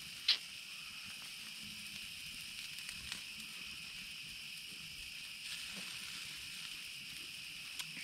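Steady chorus of night insects, an even high-pitched trilling, with a short sharp click about a third of a second in and a few faint ticks.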